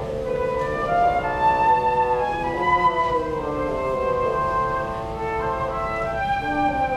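A live woodwind duet: a bassoon and a higher-pitched wind instrument play two interweaving melodic lines in held notes.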